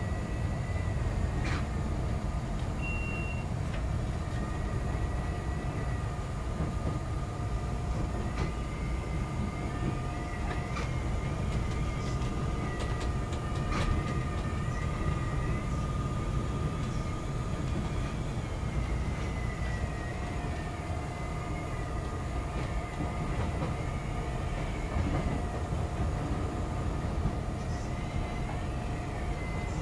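CTA Brown Line 'L' train running on the elevated track, heard from inside the car: a steady low rumble with a faint high wavering whine, and a few clicks.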